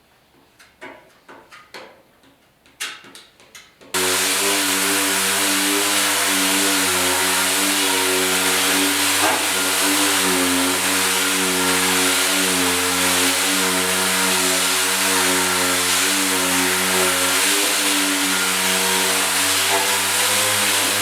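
A few light knocks of handling, then a power sander starts suddenly about four seconds in and runs steadily on the steel running board: a loud hiss over a steady hum.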